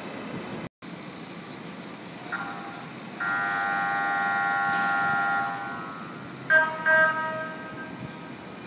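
Train horn sounding one long, steady blast of several notes, then two short toots about half a second apart.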